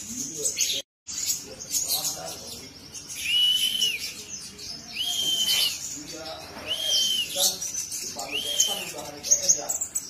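Caged sunbird (kolibri ninja) calling: a run of sharp, high chirps. Through the middle are four arched, whistled notes, one about every second and a half.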